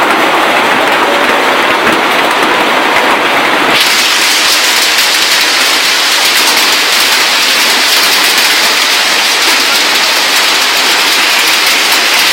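Heavy rain falling, a loud steady hiss that changes abruptly about four seconds in to a brighter, hissier sound.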